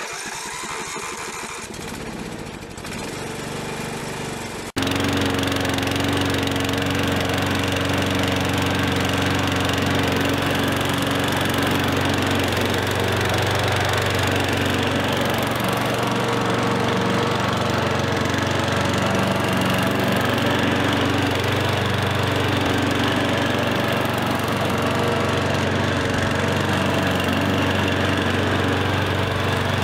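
Lawn mower engine starting up and running, then, after a sudden jump in loudness about five seconds in, running steadily.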